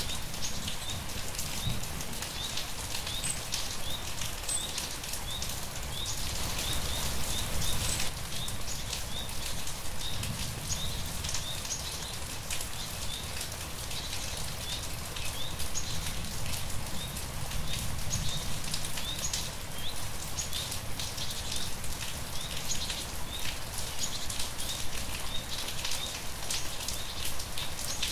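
Steady rain falling, with a small bird giving short high chirps over and over.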